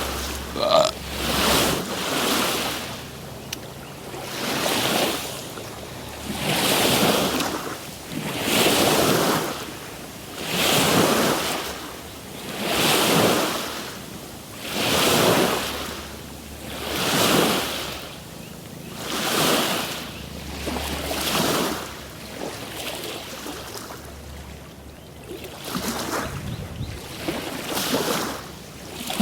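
Small waves washing in on the shore in a steady rhythm, one swell about every two seconds, the swells growing weaker for the last several seconds.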